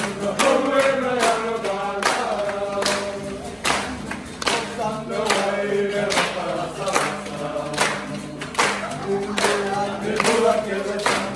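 A group of Fijian men and women singing together in harmony, clapping their hands in a steady beat of about one clap every two-thirds of a second.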